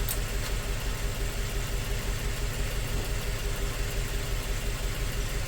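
2004 Toyota Tacoma four-cylinder engine idling with a steady low pulsing, running with a dead miss on cylinder 1.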